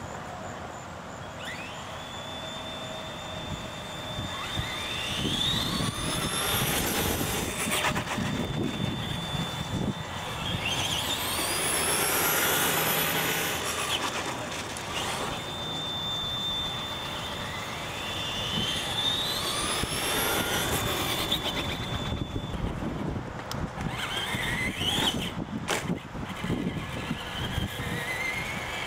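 Electric radio-controlled monster trucks' motors and drivetrains whining, the whine climbing in pitch again and again as the trucks accelerate, and holding a steady high note at speed in between, over tyre noise on concrete.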